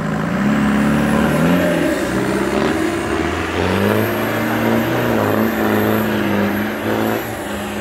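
Modified off-road competition 4x4's engine revving hard under load as it climbs a muddy slope, its pitch rising and falling with the throttle, with a high whine wavering above.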